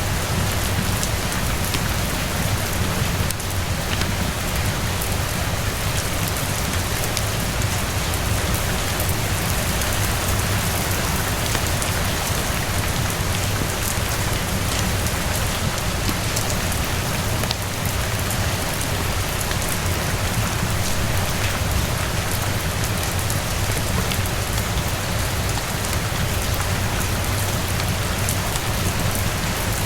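Steady rain falling on surfaces: a dense, even hiss with many small drop ticks, unchanging throughout.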